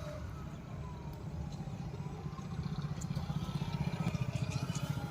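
A small motor running with a low, rapid buzz, growing louder from about three seconds in.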